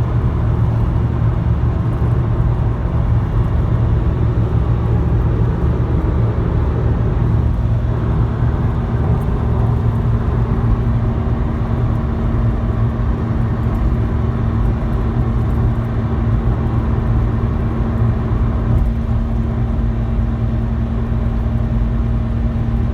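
Vauxhall Corsa running steadily, a low drone with a constant humming tone above it: the strange noise of unknown cause that the owner is asking about.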